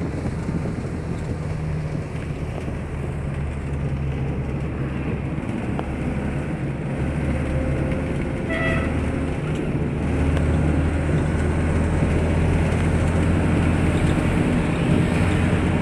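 Minibus engine running steadily with road noise, heard from inside the cabin while driving. A single short horn toot sounds about halfway through.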